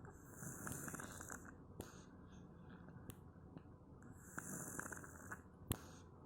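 Sleeping cat snoring: two long, hissing snore breaths about four seconds apart. A sharp click comes near the end.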